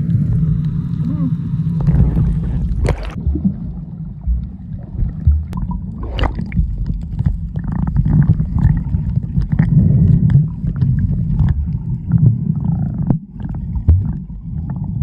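Boat engine running with a low, steady rumble, mixed with water sloshing and gurgling.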